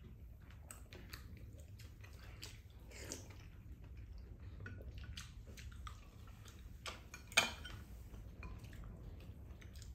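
Mealtime eating sounds: chewing, with chopsticks and a spoon clicking against ceramic bowls, and one louder clack about three quarters of the way through.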